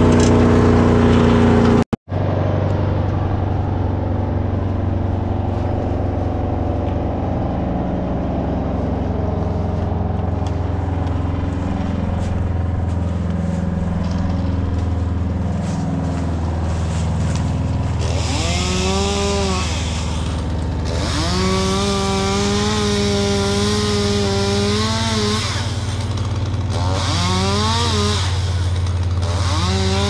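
Chainsaw revved up several times in the last third, its pitch rising, holding and dropping, with cutting noise during the longest run. Under it, a steady low engine drone runs throughout.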